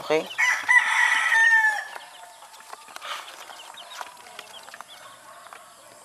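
A rooster crows once near the start, a long call of about a second and a half that drops off at its end. Faint short peeping of young chicks follows.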